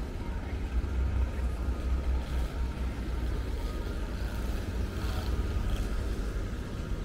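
Outdoor city street background noise: a steady low rumble.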